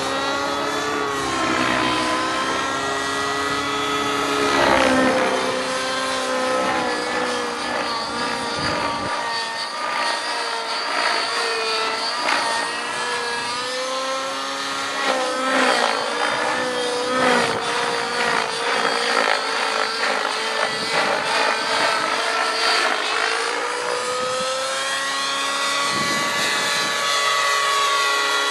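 Align T-Rex 700 radio-controlled helicopter in flight: the whine of its rotors and drive, a stack of tones that keeps sliding up and down in pitch as it manoeuvres and passes.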